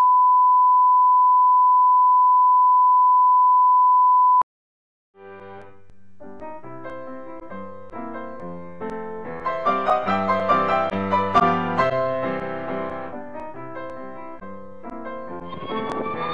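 Steady test-tone beep, the reference tone that goes with colour bars, cutting off sharply about four seconds in. After a second of silence, piano music starts softly and builds.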